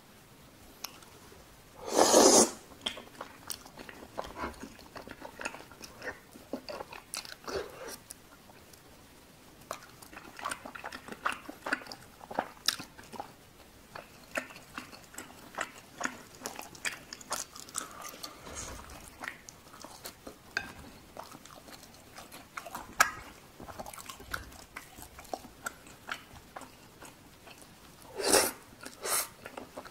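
Close-miked eating sounds: chewy tteokbokki rice cakes in sauce being chewed, with wet mouth clicks and smacks throughout. A loud mouthful is taken in about two seconds in, and two more come near the end.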